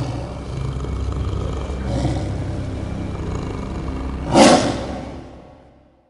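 A low rumbling roar that swells now and then, with one louder, sharper blast about four and a half seconds in, then fading away to nothing.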